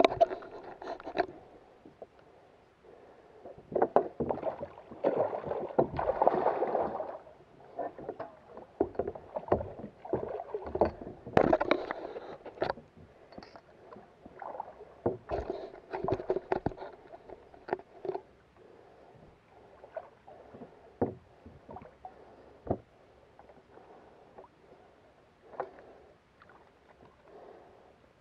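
A kayak on the water: irregular splashing and water sloshing against the plastic hull, with scattered sharp knocks and clicks of gear on the hull. The splashing is heaviest in the first half and dies down to occasional knocks later.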